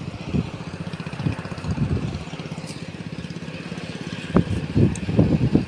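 A heavy vehicle's diesel engine running steadily at idle, with irregular low rumbling bumps on top, more of them near the end.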